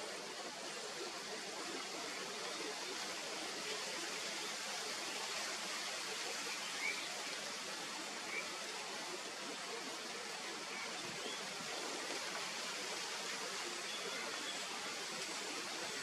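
Steady outdoor hiss with a few faint, short bird chirps, two of them close together about halfway through.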